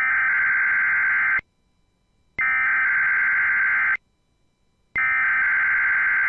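NOAA Weather Radio EAS SAME header: three bursts of digital data tones, each about one and a half seconds long with a second's pause between, marking the start of a required weekly test broadcast.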